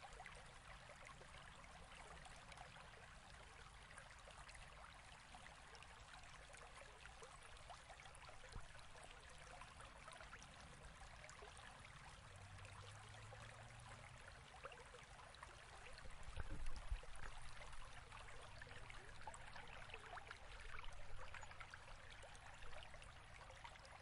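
Faint, steady rush of flowing water from a torrent, with a few louder low rumbles about two-thirds of the way through.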